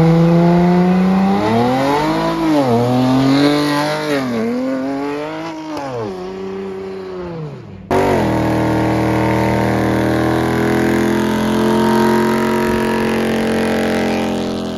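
Dodge Challenger engine revving up and dropping back three or four times. About eight seconds in it cuts to a Challenger held at high, steady revs in a burnout, rear tyres spinning in a cloud of smoke.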